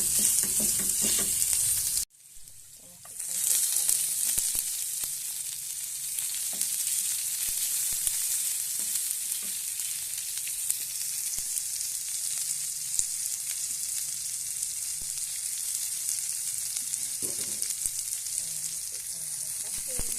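Food sizzling in hot oil in a nonstick frying pan, with scattered light knocks from stirring. The sizzle cuts out suddenly about two seconds in and rises again a second or so later, then continues steadily.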